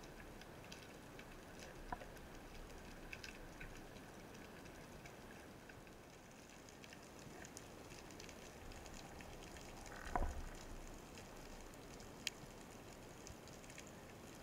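Faint underwater ambience of scattered crackling and ticking. A dull knock comes about ten seconds in, and a single sharp click follows a couple of seconds later.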